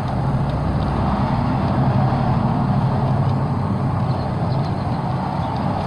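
A motor vehicle's engine running nearby, a steady low rumble that swells slightly about a second in.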